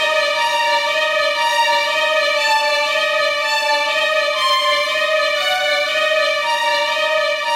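Background music: long held notes that change pitch every second or two, with no drums.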